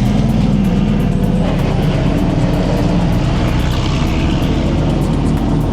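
Racing car engines running steadily, a constant engine drone with no clear pass-by.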